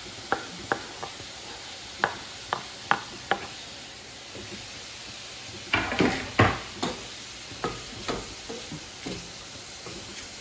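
Shrimp, ginger, garlic and bell pepper sizzling in oil in a wok while being stirred, a utensil clicking and scraping against the wok. The clicks come about one every half second at first, with a louder burst of scraping and knocks about six seconds in.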